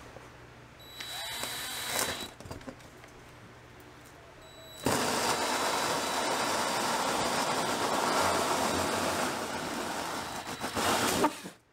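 Cordless Craftsman drill driving a 3.5-inch hole saw into wall paneling. There is a short burst of cutting with a high motor whine about a second in, then a steady cut from about five seconds in that stops near the end.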